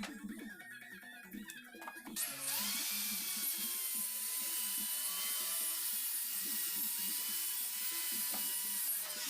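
A handheld power tool runs steadily on wood for about seven seconds, starting about two seconds in, with light guitar music underneath.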